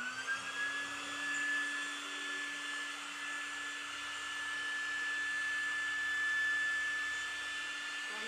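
Electric air pump running steadily with a high whine over a rushing hiss of air, inflating an inflatable swimming pool; the motor finishes spinning up in the first half-second.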